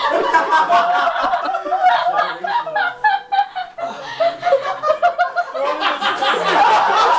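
People laughing and chuckling, with some talk mixed in.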